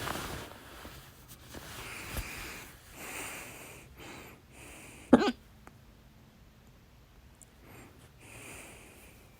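A person's loud hiccup about five seconds in: one sharp, voiced 'hic' that stops almost at once. Soft breaths in and out come before and after it.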